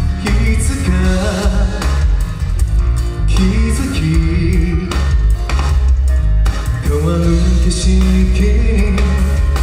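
Male singer singing a Japanese-language rock song live into a handheld microphone, over loud amplified accompaniment with drums.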